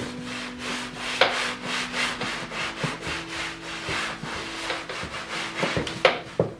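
A damp rag scrubbing over an old oilcloth upholstered seat cushion in quick back-and-forth strokes, several a second. A sharp knock comes right at the start and another near the end.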